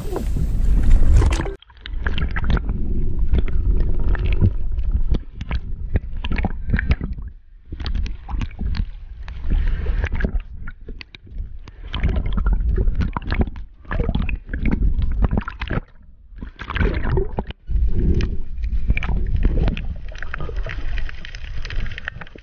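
Water sloshing and gurgling in irregular surges with knocks, picked up underwater by a housed action camera while a diver swims with a light. The sound turns muffled about a second and a half in, when the camera goes under.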